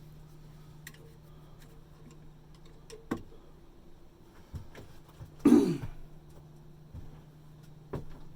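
A man clears his throat once, loudly, about five and a half seconds in, with a few light clicks and knocks before and after, over a steady low hum.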